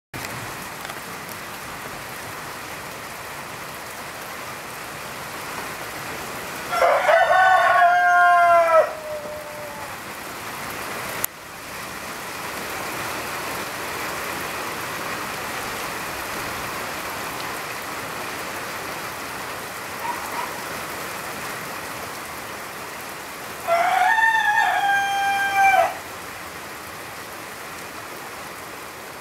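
Steady light autumn rain falling, with a rooster crowing twice, well apart, each crow about two seconds long and louder than the rain.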